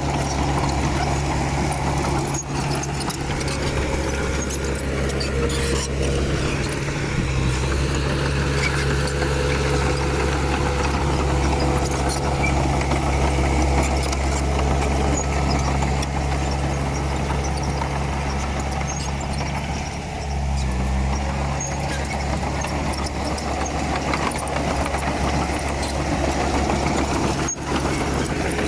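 Komatsu D31P crawler bulldozer's diesel engine running steadily under working load, with scattered metallic clicks and clanks. The engine note dips briefly about two-thirds of the way through.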